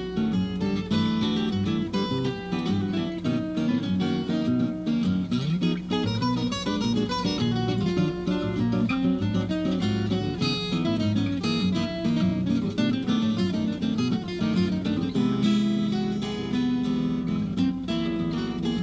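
Trio of acoustic guitars playing an instrumental piece together, with busy picked lines over chords in a jazz-influenced style.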